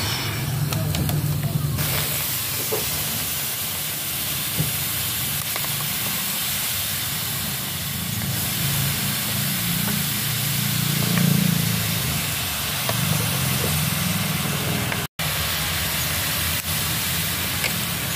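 Water poured onto the red-hot, rusted impeller hub of a water pump, hissing and sizzling as it flashes to steam; the hiss swells about two seconds in and runs on steadily. Heating and quenching like this is done to free an impeller rusted onto its shaft.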